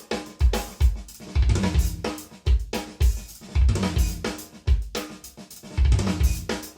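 Recorded music led by a drum kit: kick drum, snare and cymbals playing a steady beat.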